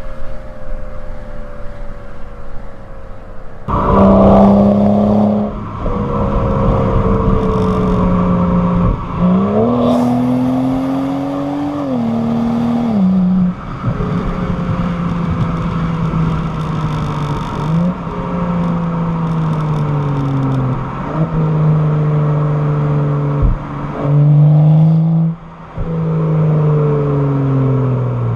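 BMW 335i's N55 turbocharged inline-six with stock exhaust, running under driving load. It gets suddenly louder about four seconds in, then its pitch repeatedly drifts down and steps back up as the automatic gearbox changes gear.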